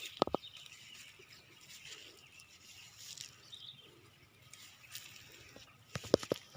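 Goats foraging in woodland undergrowth: soft rustling with sharp snaps of twigs or leaves, a couple near the start and a quick cluster near the end, under faint bird chirps.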